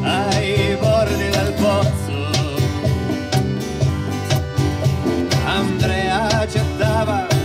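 Live folk band playing: strummed acoustic guitar, accordion, electric bass and conga drums, with a male voice singing over them.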